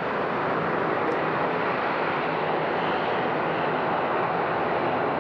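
Engines of a four-engine Airbus A340 airliner running as the jet moves along the runway: a steady, even jet rush that grows a little louder about half a second in and then holds.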